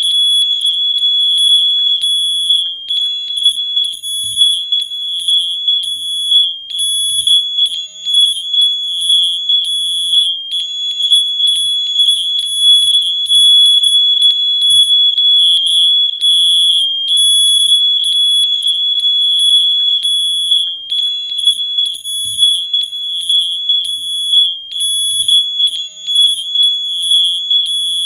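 A hundred smoke alarms sounding at once, their high-pitched beeps overlapping into a near-continuous shrill tone that wavers in loudness.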